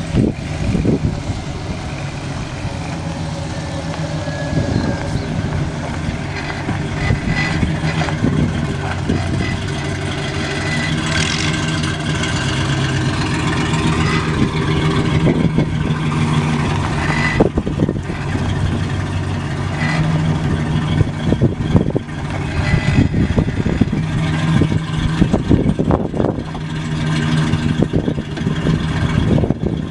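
Chevrolet 6.0L V8 gas engine of a 2010 Silverado 2500HD pickup running steadily, with a few short knocks scattered through it.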